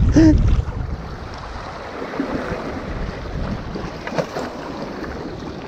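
Sea water washing and lapping against breakwater rocks, with wind rushing over the microphone; a brief voice sounds right at the start.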